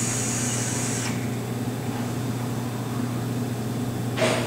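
Vaping on a DNA 200 box mod with a Troll dripping atomizer: the high, steady hiss of the draw through the atomizer cuts off about a second in. A short puff of exhaled breath follows near the end, over a low steady hum.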